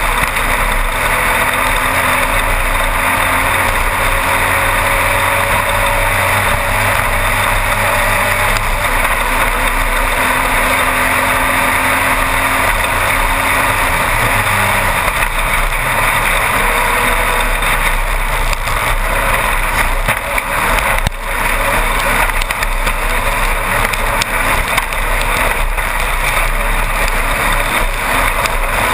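A Class 1-1600 desert race buggy's air-cooled VW engine running hard at race speed, heard from inside the car under a loud, steady wash of wind and terrain noise. The low engine note shifts about halfway through, and the sound briefly drops about two-thirds of the way in.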